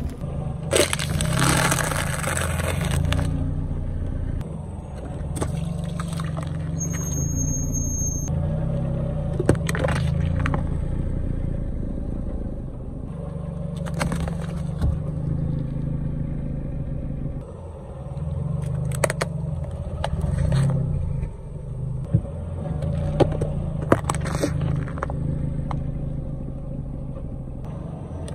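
A car's engine running at low speed while its tyre slowly rolls over and crushes objects on asphalt, with a loud crunching stretch about a second in and several sharp cracks and pops spread through.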